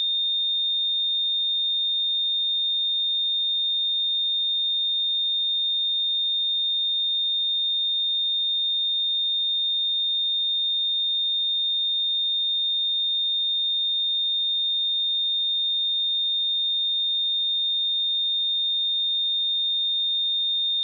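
A steady pure sine-wave test tone at 3647 Hz, a single high-pitched whistle-like tone held at constant level, used for checking speakers and headphones.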